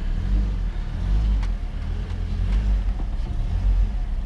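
2013 Toyota Corolla's four-cylinder engine running at low speed as the car is driven up onto ramps, its engine note rising and falling slightly.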